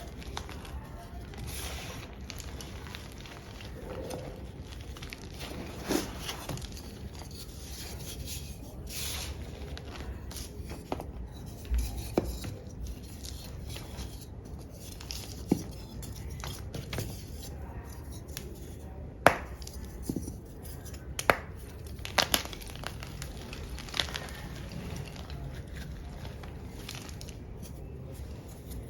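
Chunks of black-dyed gym chalk crunching and crumbling as they are crushed, with irregular sharp snaps. The loudest snaps come about two thirds of the way through.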